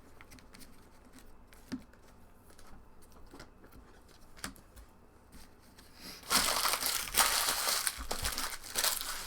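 Empty trading-card pack wrappers being crumpled and gathered up, a loud crinkling that starts about six seconds in after a few quiet handling clicks.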